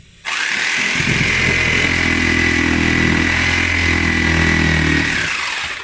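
Electric power tool motor switched on, running steadily with a high whine for about five seconds, then switched off and winding down.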